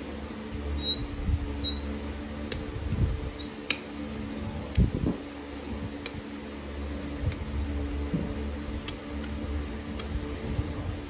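Steady hum of a fan, with a few sharp metallic clicks from a farrier's hand tools working on a shod hoof and one louder dull knock about halfway through.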